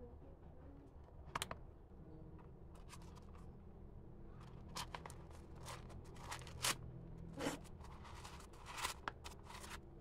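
Tissue-paper stuffing rustling and crinkling as it is pulled out of a patent-leather shoe, in a string of short crackles, most of them in the second half.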